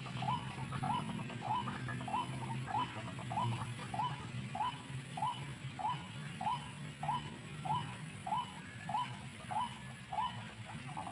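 White-breasted waterhen calling: a short note of the same pitch repeated steadily, about every 0.6 seconds, over a low steady hum.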